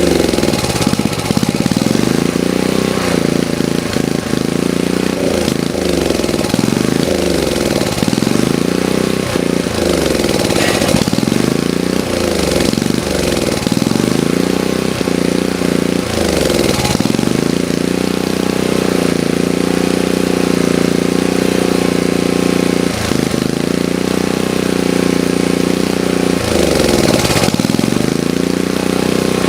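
Sportsman GEN2000 generator's small engine running, its speed repeatedly sagging and picking back up, then holding steady for a while before dipping again twice: the engine is surging, hunting for a steady speed.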